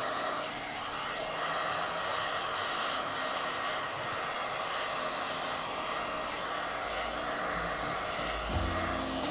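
Electric heat gun blowing steadily as it is swept over faded grey plastic to heat the surface to a wet look and restore its colour. Background music comes in near the end.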